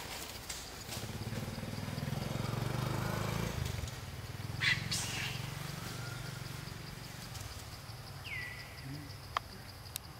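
A motor engine drones, growing louder over the first few seconds, then fading away. Near the end there is one brief, high, falling chirp.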